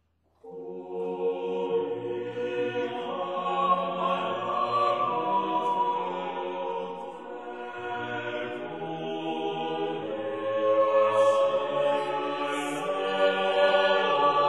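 Choral chant music: several voices holding slow, sustained notes, starting suddenly about half a second in.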